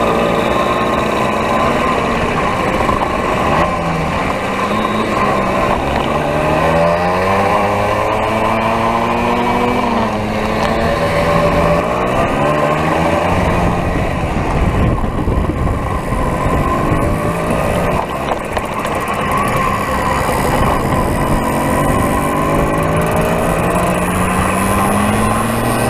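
Two-stroke engine of an old moped running under way, heard from on the bike. Its pitch climbs and drops several times as it speeds up and eases off.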